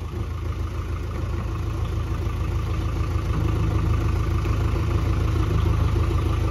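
JCB backhoe loader's diesel engine running under load, growing steadily louder as it pushes with its front bucket against the back of a loaded tipper truck stuck in mud.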